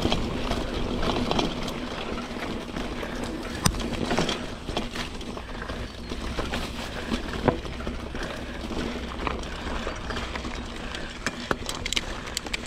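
Trek Marlin 7 hardtail mountain bike rolling over a dirt trail: a steady rumble of tyres on the ground, with sharp knocks and rattles from the bike over bumps, a few of them near the end.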